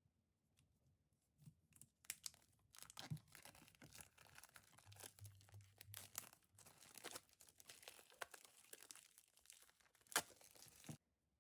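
Packaging being torn open and crinkled by hand: a dense run of tearing and rustling that starts about two seconds in, with a sharp snap near the end before it stops suddenly.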